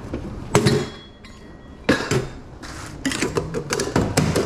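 Metal tongs clanking and scraping against a stainless steel steam table and its pans: a sharp clank about half a second in, another near two seconds, then a quick run of clicks and scrapes near the end.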